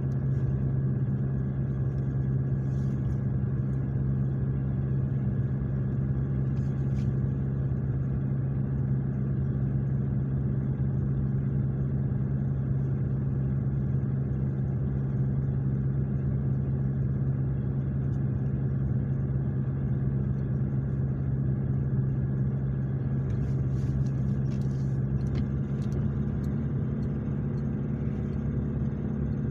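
A car driving, its engine and tyres making a steady low drone heard from inside the cabin.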